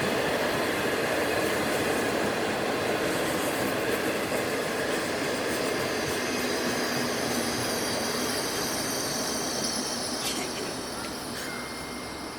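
Passenger train of 25T coaches rolling past at close range, wheels and rails running with high thin squealing tones over the rumble, fading near the end as the train moves away.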